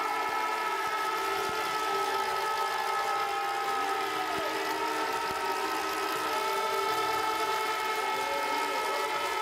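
Stadium crowd cheering and blowing horns: many steady overlapping horn tones held at fixed pitches, with a few rising and falling calls over the din.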